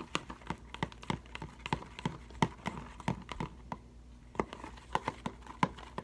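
A utensil clicking and knocking against the sides of a bowl as glue slime mixture is stirred while Tide activator is worked in, with a few sharp taps a second in an uneven rhythm.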